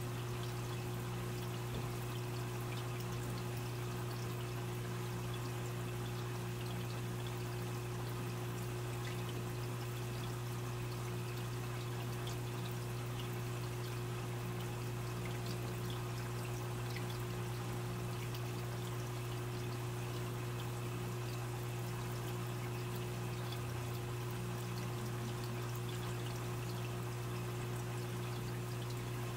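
Aquarium filter water trickling and splashing steadily into the tank, with small drips and ticks, over a steady low hum.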